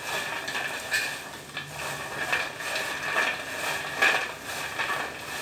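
Crisp fried namkeen pieces being tossed by hand in a wide metal platter to coat them with spice mix: the pieces clatter and rustle against the metal and each other in irregular strokes.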